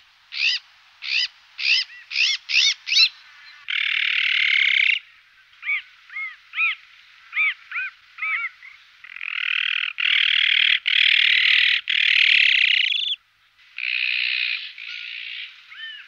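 Magpie calling: runs of short rising-and-falling notes about two a second, broken by long, harsh chattering rattles lasting one to four seconds.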